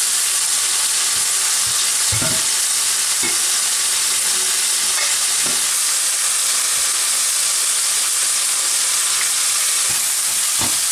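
Raw prawns sizzling in hot olive oil in a non-stick wok, a steady hiss, with a few brief scrapes of a silicone spatula stirring them.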